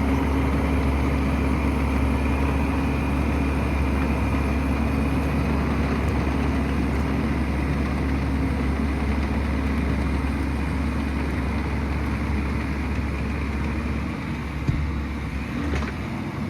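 Excavator's diesel engine running steadily at an even pitch, with a faint high whine above it. The low hum eases off near the end.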